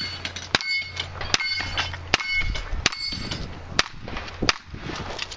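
A string of about six handgun shots, spaced roughly half a second to a second apart, with steel targets ringing with a high metallic ding after several of them.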